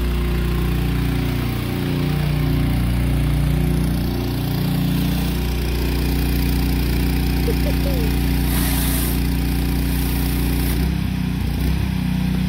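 Pressure washer's small engine running steadily, with the hiss of water spraying from a rotating surface cleaner on concrete. A brief louder burst of hiss comes about two-thirds through.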